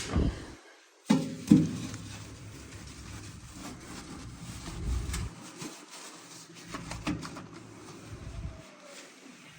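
A few sharp knocks, then soft uneven rubbing and handling noises from hand-cleaning a microwave with a sponge and spray cleaner.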